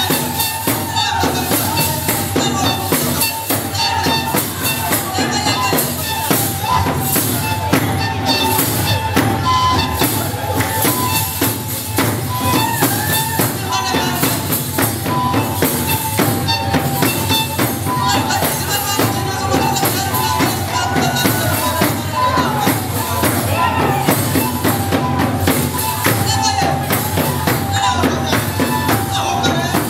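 Live Rwandan traditional song: a choir singing with a fast, steady percussion beat.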